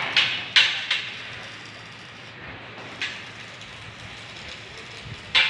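Welding work on a steel roof truss: a few short, sharp bursts of sound, four in quick succession in the first second, one about three seconds in and one more at the end, over a steady background hiss.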